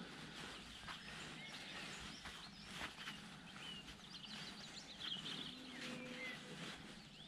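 Faint outdoor ambience with birds chirping: scattered short chirps and a few soft ticks over a low background hiss.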